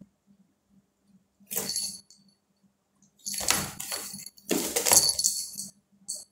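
A British Shorthair cat scrabbling at and jumping into a cardboard box, claws and paws scraping and rustling the cardboard in several bursts, the two longest about a second each, with a short last scrape near the end.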